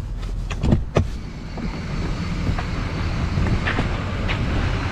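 Plow truck's engine running steadily, with a few sharp clicks and knocks in the first second.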